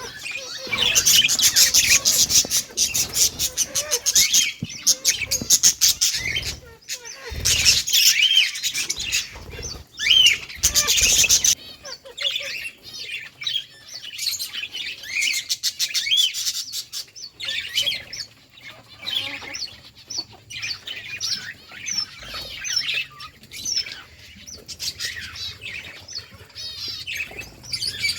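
A flock of budgerigars chirping and chattering in rapid, high twitters. The chatter is loud and dense for about the first eleven seconds, then drops to quieter, scattered chirps.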